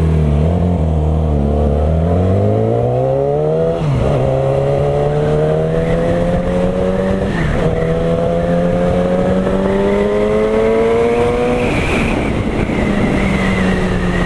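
Yamaha R6's inline-four engine through an aftermarket Akrapovič full exhaust system, accelerating hard through the gears. The engine note climbs steadily, with upshifts about four, seven and twelve seconds in.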